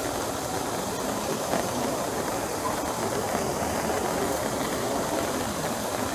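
Steady rushing and splashing of water from the Fountain of the Four Rivers, blended with rain falling on wet stone paving.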